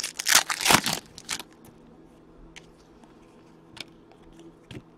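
Foil wrapper of a 2008-09 SPX hockey card pack being torn open and crinkled for about a second and a half, then a few faint ticks and rustles as the cards are handled.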